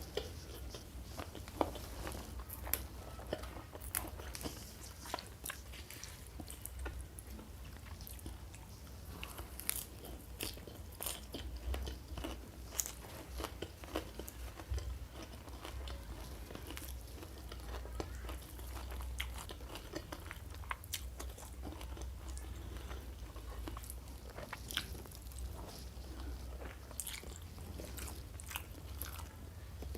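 Close-miked eating: a person biting and chewing crunchy food, with many short sharp crunches scattered through, over a steady low hum.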